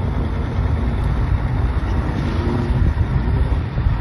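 Strong wind buffeting the microphone: a loud, continuous low rumble.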